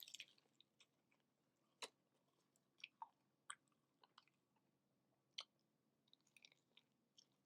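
Faint chewing of a crunchy hard-shell taco, with sharp, separate crunches every half second to a second, the loudest a little under two seconds in and about five and a half seconds in.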